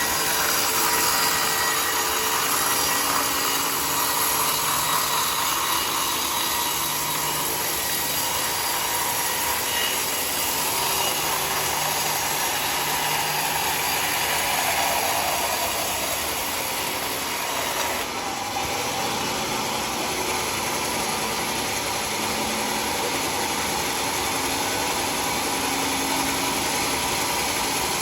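Sawmill circular saw running and cutting a mahogany log, a continuous loud machine noise. About 18 seconds in, the sound changes abruptly to a steadier machine run.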